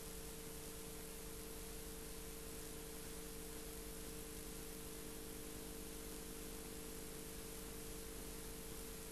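Steady hiss with a constant hum underneath and no other sound: the background noise of an old video recording.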